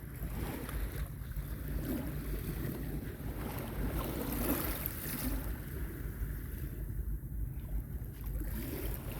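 Calm sea waves washing gently onto a beach, swelling about four seconds in, with wind buffeting the microphone as a steady low rumble.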